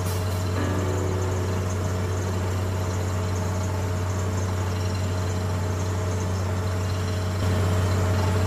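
Water-well drilling rig's engine running steadily with a low hum, a little louder about seven and a half seconds in.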